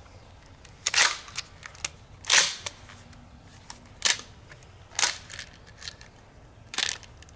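Handling noise: about five sharp clicks and rustles a second or so apart, the longest and loudest about two seconds in.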